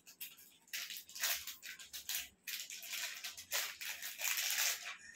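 Thin clear plastic bag crinkling and rustling in short irregular bursts as it is handled and opened.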